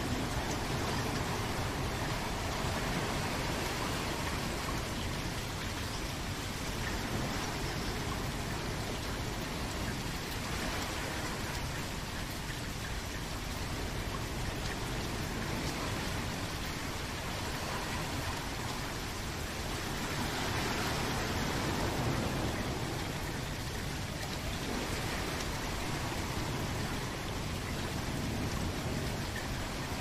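Steady rain falling, an even hiss that swells slightly a little after two-thirds of the way through.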